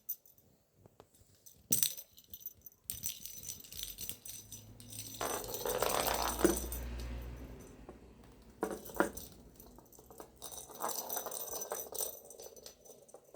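Small toy ball rattling and clicking in irregular spells as a budgie knocks it about, with a few sharper knocks.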